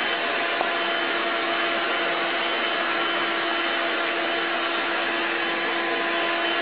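Vacuum cleaner motor running steadily: an even rushing noise with a constant hum.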